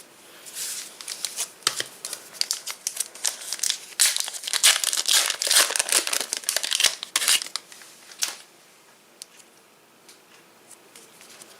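Foil trading-card pack wrappers being torn open and crinkled, with a dense crackling rustle; it stops about eight seconds in, leaving a few faint clicks.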